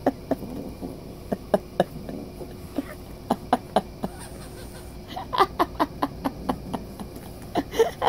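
Short, sharp clicks and taps in uneven bunches, a few a second, thickest about two-thirds of the way in and again near the end.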